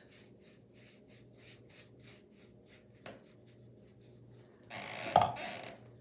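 A large flat watercolour brush handled at the water tub: faint light strokes, a small click about three seconds in, then a second-long swish with a sharp knock a little after five seconds as the brush is laid in the tub.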